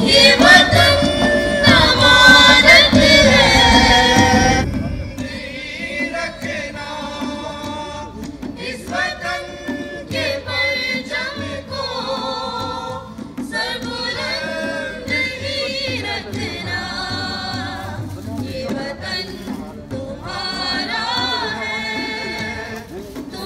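Pakistani national songs (naghmay) sung by a group of voices. For the first four seconds or so the music is loud and full, then it cuts to a quieter small group singing at a microphone, accompanied by dholak and guitar.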